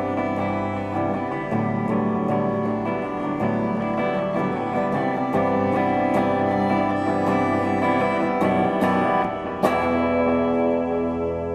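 Live instrumental jazz from a trio of violin and two guitars, with picked guitar notes to the fore and a sharp plucked accent about ten seconds in.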